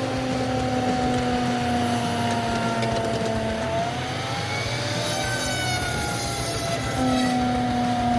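Tracked forestry felling machine running, a steady mechanical drone of engine and saw whose pitch sags slowly, picks up about four seconds in, then sags again. A hissing rush joins in from about five to seven seconds.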